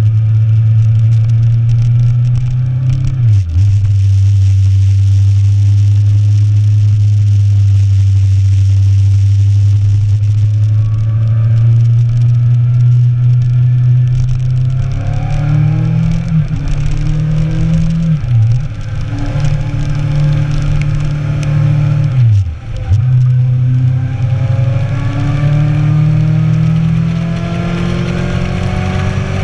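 Inline-four sport motorcycle engine running under way, with wind rush. Its pitch dips sharply three times as gears change, and it climbs in pitch in the second half as the bike accelerates.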